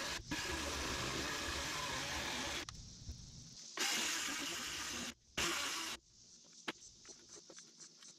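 DeWalt Flexvolt 60V electric chainsaw running its chain through a log as an Alaskan chainsaw mill cut, heard in three loud stretches that start and stop abruptly. From about six seconds it is fainter, with a fast, even pulsing.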